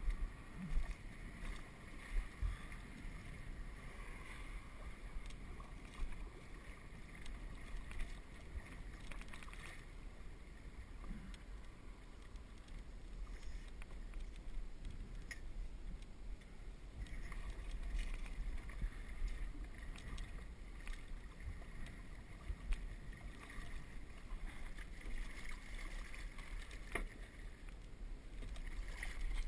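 Water lapping and sloshing against the hull of a small trimaran, with wind rumble on the microphone and scattered light knocks from the boat.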